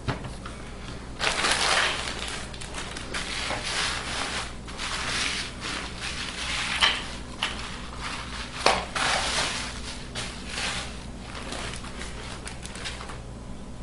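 Hands handling a laptop and tools on a tabletop: repeated rustling and scraping strokes with a few sharp clicks, the loudest about halfway through and again a couple of seconds later.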